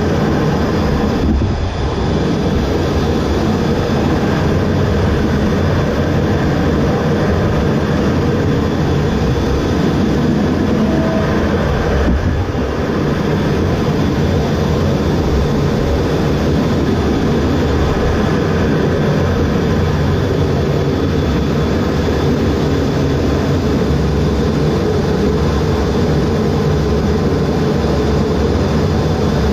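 Loud, steady jet engine noise on an aircraft carrier flight deck, with no clear start or stop.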